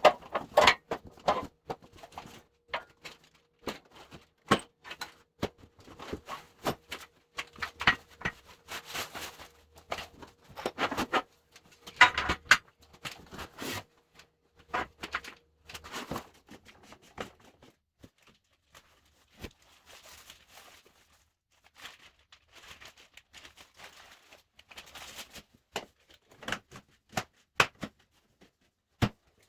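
Sawmill parts and packaging being handled during an unboxing: irregular knocks, clicks and clatter with some rustling, broken by short pauses.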